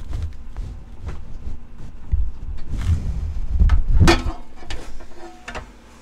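Handling noise: deep thumps and rubbing with a scatter of sharp clicks, the loudest about four seconds in, as a hand works a black plug at the wall.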